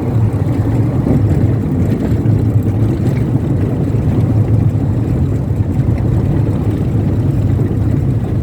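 Steady low rumble of a vehicle in motion, engine and road noise.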